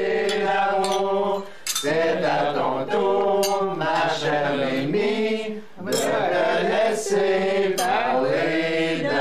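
Singing voices in a slow, chant-like melody, each note held for about a second, with short pauses between phrases.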